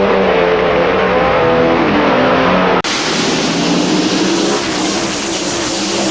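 AI-generated race car engine sound, made for NASCAR race footage: engines running hard with their pitch wavering up and down. About three seconds in the sound cuts abruptly to a brighter, noisier engine sound.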